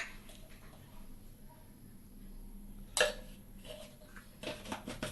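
Quiet kitchen room tone with one sharp knock about three seconds in and a few light clicks near the end, the sound of a pan or oil container being handled on the stove.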